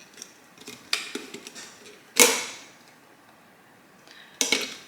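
Plastic dust container and filter parts of a cyclonic stick vacuum being handled: three sharp knocks and clicks, the loudest about two seconds in.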